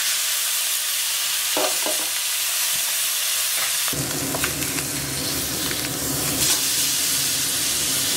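Spice-marinated basa catfish fillet sizzling as it pan-fries in a little oil, with a few clicks of tongs and a spatula against the pan. The sizzle grows fuller about four seconds in.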